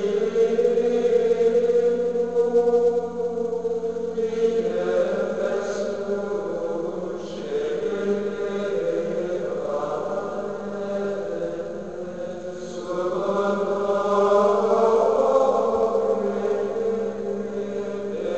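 Monks' choir singing Gregorian chant in men's voices: a slow melody of long held notes, stepping to a new pitch every few seconds.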